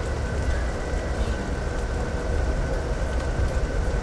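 Steady low rumble of a passenger train running, heard from inside the car, with a faint steady hum over it.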